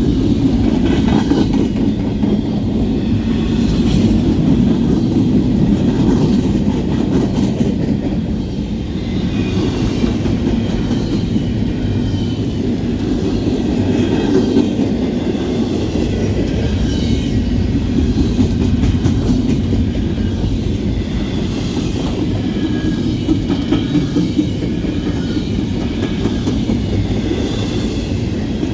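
Norfolk Southern freight cars rolling past in a steady, loud rumble, with wheels clicking over rail joints and thin wheel squeals now and then.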